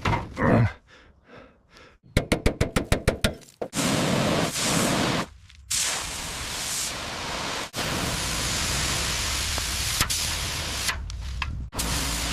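Workshop tool sounds: a rapid run of about fifteen knocks, then several stretches of steady hissing noise broken by short pauses.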